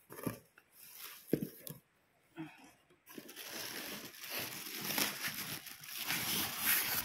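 Packing being handled with a few scattered knocks and rustles, then, about three seconds in, continuous crinkling of the clear plastic wrap around a new printer as it is pulled at.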